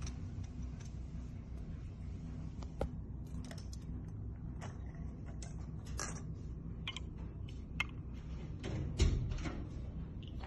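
Light clicks and rattles of jewelled metal links and a belt buckle being handled on a table, with a louder knock about nine seconds in, over a steady low hum.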